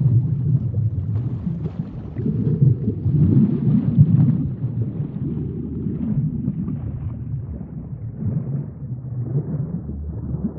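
A deep, low rumble that swells and fades in slow waves, loudest in the first half.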